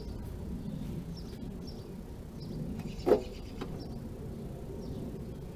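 2009 Nissan Cube's fuel filler door being opened: a single sharp clack about three seconds in, with a brief ring.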